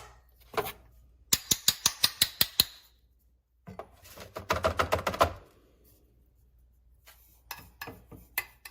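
Quick runs of sharp clicks, about seven a second, from handling a Fellow Ode Brew coffee grinder, with a denser clattering patch in the middle and a few scattered clicks near the end.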